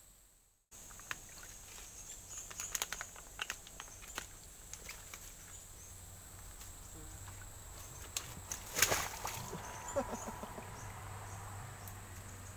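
Footsteps wading through shallow swamp water and weeds: scattered knocks and rustles, then one louder burst of noise about nine seconds in. A steady high insect drone runs underneath.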